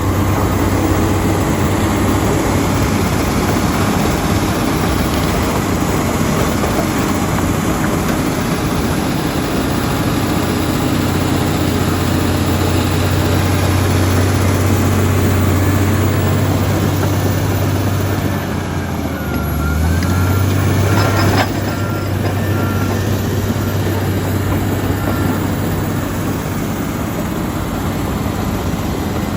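Komatsu D85EX bulldozer's diesel engine running under load as the machine works rock. The engine note sags briefly about two-thirds of the way through and picks back up, with a single sharp knock just after.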